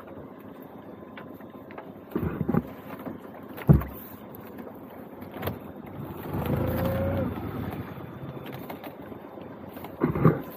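A lobster pot being hauled up on a small boat's pot hauler: a steady low background with a few knocks, and a louder stretch with a steady tone partway through.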